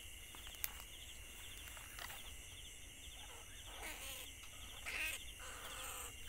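Rats caught in traps squealing in short calls about two, four and five seconds in, over a steady, evenly pulsed chirping of insects.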